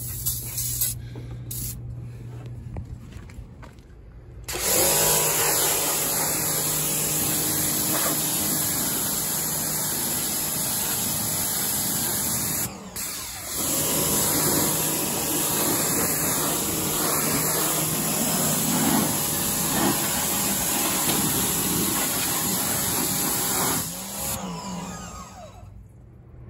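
Short hisses of an aerosol engine degreaser can. About four and a half seconds in, a pressure washer starts and runs steadily, its motor humming under the loud rush of the water jet on the engine bay. It stops briefly near the middle and cuts off a couple of seconds before the end.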